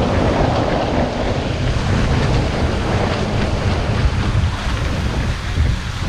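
Heavy wind rumble on the microphone over the rush of water and spray along the hulls of a Diam 24 trimaran sailing under way. The noise is steady and loud.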